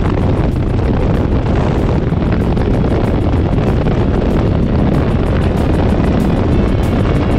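Wind rushing steadily and loudly over a chest-mounted GoPro's microphone as a Yamaha motorcycle rides along, with the engine running underneath.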